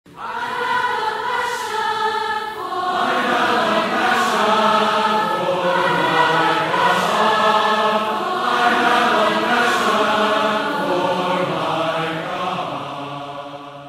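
Choir singing slow, sustained chords as opening music, fading out near the end.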